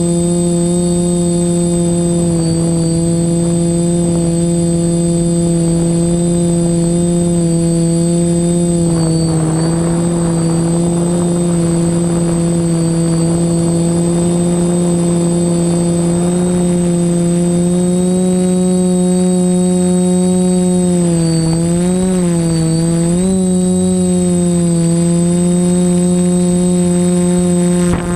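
TBS Discovery quadcopter's electric motors and propellers buzzing at a steady pitch, heard from the camera on board, with a thin high whine over it. About three-quarters of the way through, the pitch dips and wobbles a few times as the throttle changes.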